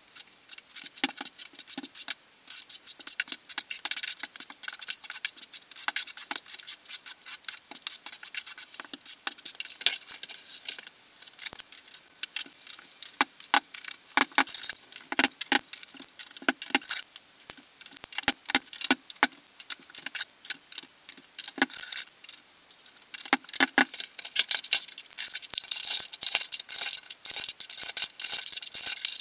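Dense, rapid clicking and scraping of tile work: a notched trowel combing thinset on the wall and ceramic subway tiles clicking as they are set, crowded together as in time-lapse footage.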